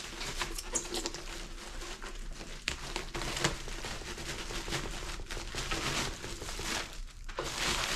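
Packaging crinkling and rustling as a PS5 console is unpacked from its box, with a few light clicks and knocks.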